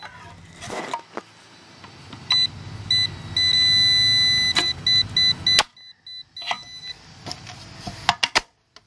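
Fieldpiece SC56 clamp meter's non-contact voltage beeper sounding as it senses voltage: a few short beeps, a steady beep a little over a second long, then quicker beeps that cut off about five and a half seconds in. A few sharp clicks follow near the end.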